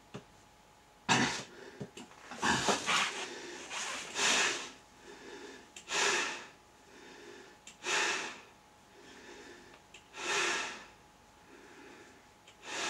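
A person breathing hard through a mask with a breathing hose, each breath a hoarse rush of air, about one every two seconds.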